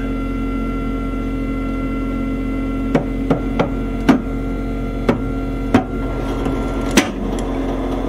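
American Harvest 6039 corn stove's stirring burn-pot agitator snapping: about seven sharp, irregular knocks from about three seconds in, the loudest near the end, over the steady hum of the stove's motors. The stirrer is in a bind and catching.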